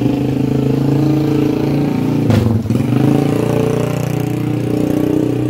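Motor vehicle engine running loud and close, at a fairly steady pitch, with one short knock or clatter a little over two seconds in.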